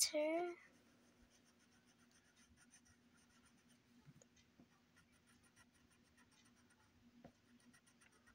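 Green colored pencil shading lightly on paper: a faint, quick scratching of back-and-forth strokes.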